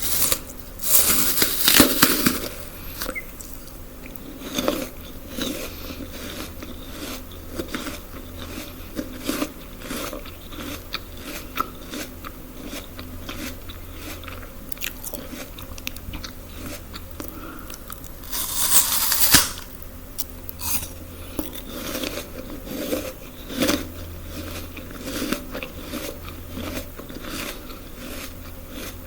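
Close-up biting and chewing of food, with loud crunchy bites about a second in and again past the middle, and wet clicking chews between them.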